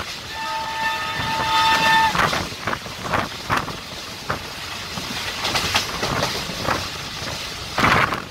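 A train horn sounds one steady, multi-tone blast of about two seconds near the start, over the rattle and clickety-clack of a moving passenger train's wheels on the rails and the rush of air at the open coach door. A louder clatter comes near the end.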